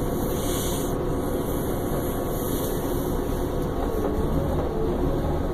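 Steady engine and road noise of a 2009 Orion VII transit bus, heard from inside the passenger cabin while riding.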